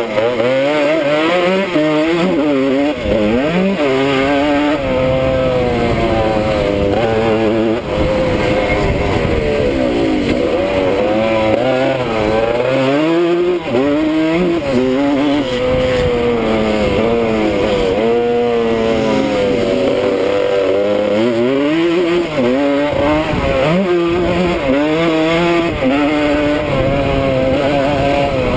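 1979 Suzuki RM125's two-stroke single-cylinder engine under riding load, its pitch climbing and dropping again and again as the throttle is opened and shut through the corners and straights, with wind noise on the helmet microphone.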